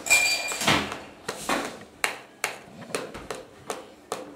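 Plastic spoon scraping and knocking in a small plastic yogurt cup: a loud scrape with a faint squeak at the start, another scrape a moment later, then a run of light clicks and taps.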